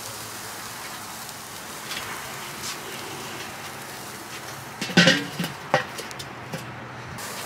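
Chicken kabobs sizzling over hot charcoal on a Weber kettle grill, a steady hiss with a few faint pops. About five seconds in comes a loud clank as the metal kettle lid is set down over them.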